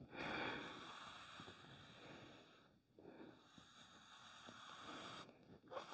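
Near silence: a low hiss with faint soft rubbing as a small foam sponge roller is drawn lightly along painted wooden moldings.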